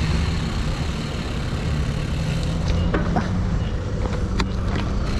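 Steady low rumble of road traffic, heard while riding along a road, with a faint engine hum and a few short clicks.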